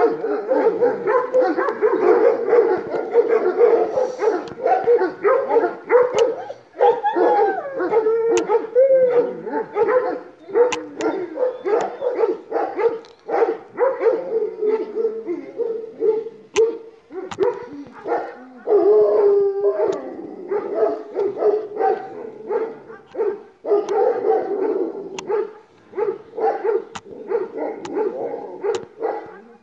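Several Kangal shepherd dogs barking and howling over one another without a break, in an aggressive reaction to a drone overhead.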